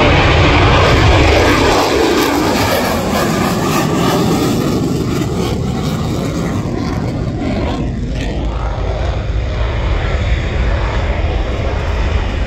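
Military fighter jet taking off and climbing away: a loud jet roar that eases a little past the middle and builds again near the end.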